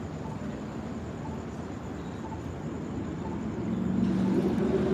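Steady rushing noise of floodwater pouring from a broken water main, with a vehicle's engine growing louder in the last second or so.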